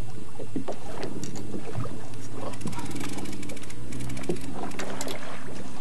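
A boat's motor running slowly with a steady low hum, and scattered light clicks and knocks on top.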